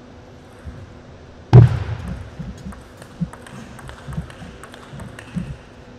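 Table tennis rally: a loud thump about a second and a half in, then the ball clicking back and forth off the bats and table about twice a second.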